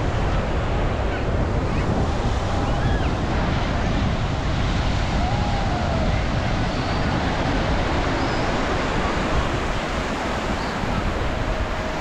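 Ocean surf breaking and washing up on a sandy beach, a steady wash of waves with wind buffeting the microphone. A few faint short calls rise and fall over the noise.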